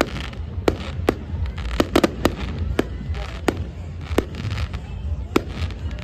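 Fireworks display: a rapid, irregular run of sharp bangs from bursting aerial shells, about two a second and some in quick pairs, with patches of hiss and crackle between them over a steady low rumble.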